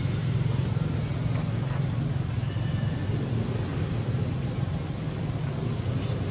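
Steady low rumble of outdoor background noise, with a few faint high chirps about halfway through.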